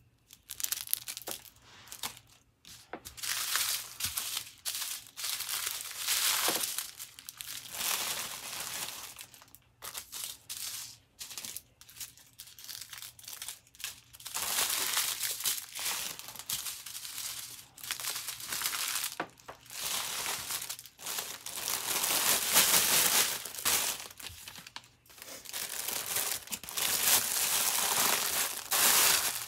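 Small plastic packets of diamond painting drills crinkling in irregular bursts as they are handled, gathered up and pushed into a larger plastic bag.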